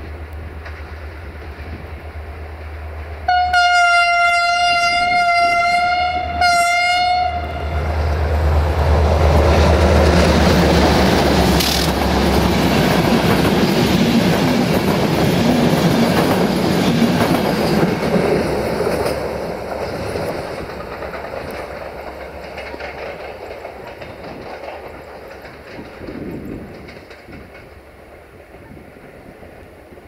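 CFR class 64 diesel-electric locomotive sounding its horn in two blasts, a long one of about three seconds and then a short one, as it comes in at the head of a passenger train. The locomotive and coaches then pass with loud engine, wheel and rail noise, which fades as the train draws away.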